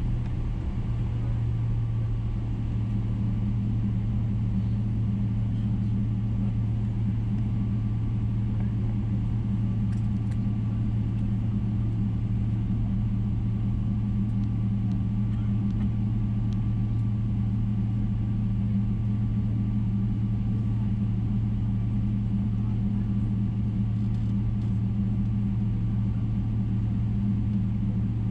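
Steady low drone inside the cabin of a Boeing 777-300ER, its General Electric GE90 engines and cabin airflow heard from a window seat over the wing, holding one pitch throughout.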